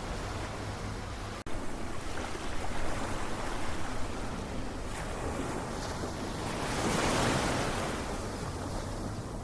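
Ocean waves washing ashore in a continuous rush. One wave swells and breaks loudest about two-thirds of the way through, then recedes. There is a momentary dropout about a second and a half in.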